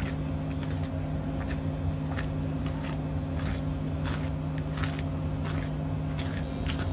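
A spatula stirring thick, bubbling mango jam in a stainless steel pan, giving wet slaps and clicks about every half second over a steady low hum.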